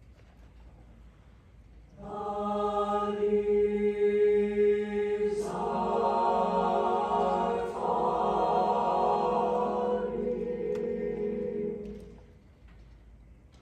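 High school mixed chamber choir singing slow, sustained chords. After a quiet pause, a held chord enters about two seconds in, the harmony shifts twice, and the sound fades away near the end.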